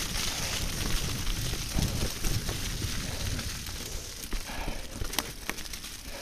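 Specialized Stumpjumper 29er mountain bike riding along a muddy, leaf-covered singletrack: tyres rolling over wet leaf litter and slick mud, with low rumble on the camera microphone. A few sharp clicks come from the bike in the second half.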